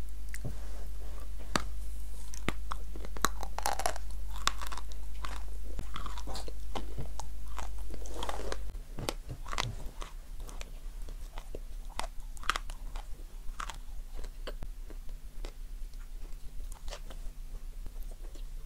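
Close-miked mouth biting and chewing a crumbly white piece, with a run of crackly crunches that thin out in the second half. A steady low hum underneath stops about nine seconds in.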